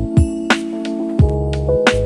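Background music: an instrumental track with sustained keyboard chords, a bass line and a steady drum beat.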